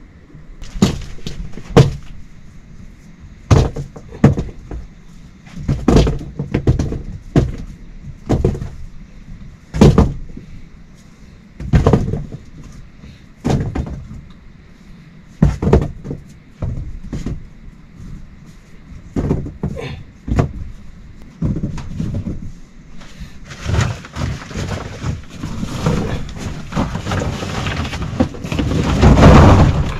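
A series of separate knocks and thuds, roughly one every one to two seconds, followed by a few seconds of steady hissing noise that grows louder and then drops away near the end.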